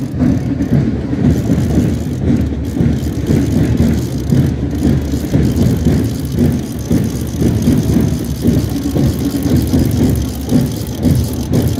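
Wind buffeting the microphone: a loud, low rumble that keeps swelling and dipping.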